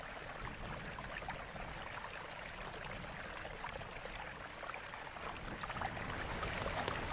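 A steady rushing hiss like running water, with faint scattered crackles and no music, growing slightly louder near the end.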